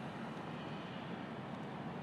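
Steady rushing of wind and water aboard an Island Packet 380 sailboat under sail, an even noise with no engine note.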